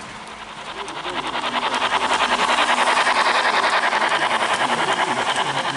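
Model freight train's wagons rolling past on the track, their wheels clicking rapidly and evenly over the rail joints. The clatter grows louder as the train nears and is loudest about three seconds in.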